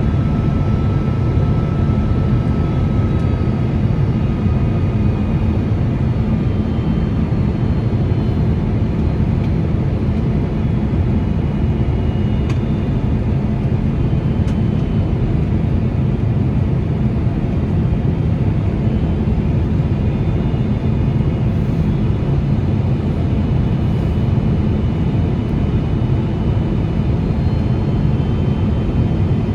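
Steady interior cabin noise of a Boeing 767 airliner in flight: a constant low roar of engines and airflow, with faint high whining tones that drift slightly in pitch.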